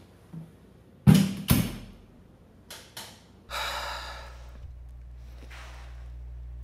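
Two loud thumps about a second in, then two light clicks; then a man's long exhaled sigh and a fainter breath over a steady low room hum.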